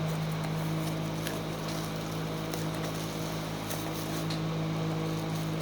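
A cardboard-and-plastic mouse box is being opened by hand, giving scattered small clicks and crackles. Under it runs a steady low hum.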